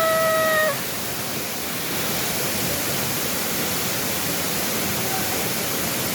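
Waterfall rushing with a steady, even roar. Right at the start a person's voice briefly holds a called-out note.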